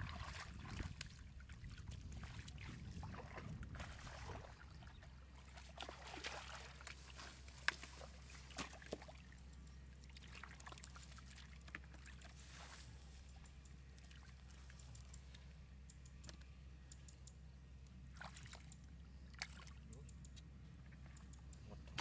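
Faint splashing and sloshing of hands working through shallow muddy water while catching catfish, with a few short sharp clicks, the loudest about eight seconds in, over a low steady hum.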